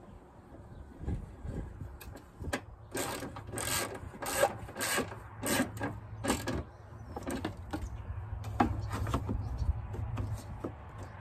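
Ratchet wrench worked in a run of short rasping strokes, about two a second, tightening a bolt at the top of a car radiator; lighter strokes follow near the end.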